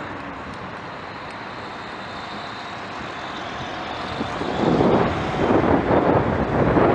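Road traffic around a roundabout, with a car's engine and tyres close by in the quieter first half. About four and a half seconds in, wind buffeting the microphone of a bicycle-mounted camera grows loud as the bike picks up speed.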